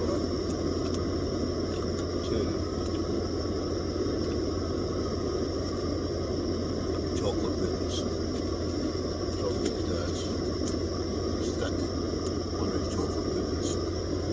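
Steady low hum with faint, distant voices behind it.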